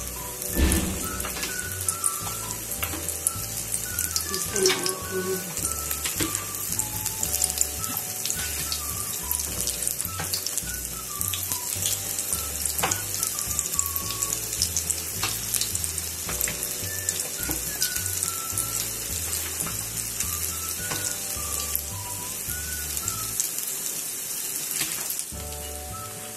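Gram-flour batter pakoras deep-frying in hot oil in a wok: a steady, dense crackling sizzle, with a few louder spits as more batter is dropped in by hand in the first few seconds. Soft background music plays underneath.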